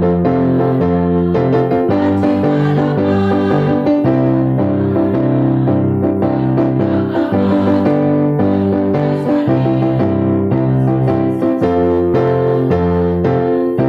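Electric keyboard playing piano-style chords as the accompaniment to a women's choir, the chords held and changing about once a second.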